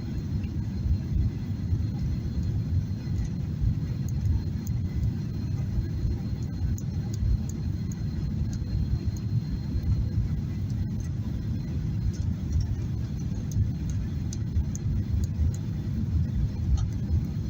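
Boeing 737-800 airliner cabin on final approach: a steady low rumble of the engines and airflow, heard from inside the rear economy cabin.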